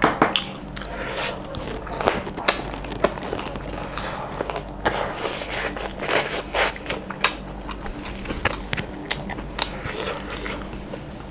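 Wet, irregular eating sounds: chewing and lip smacks over mutton curry and rice, with fingers squelching and scraping through the rice as it is mixed by hand.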